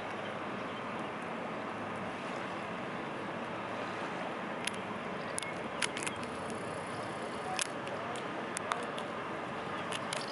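Steady rushing outdoor noise of a river with a tugboat pushing a barge in the distance. From about halfway through, a scattering of sharp, short clicks.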